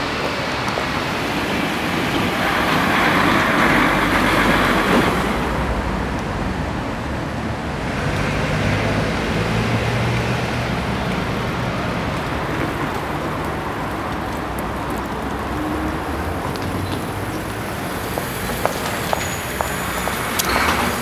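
Steady urban road traffic: a continuous wash of passing cars, with one vehicle passing louder a few seconds in and a few light clicks near the end.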